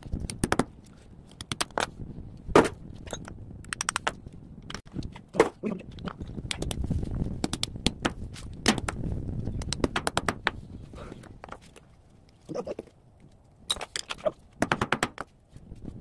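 A claw hammer strikes a small copper-wound coil from a microwave oven against concrete, knocking it apart to free the copper winding. The knocks are sharp and irregular, some single and some in quick rattling clusters.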